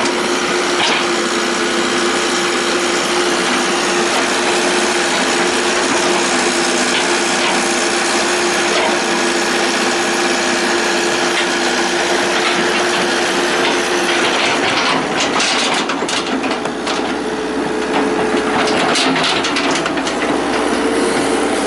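Hitachi EX120 excavator's diesel engine running under load with a steady hum. From about fifteen seconds in it is joined by a run of sharp cracks and knocks.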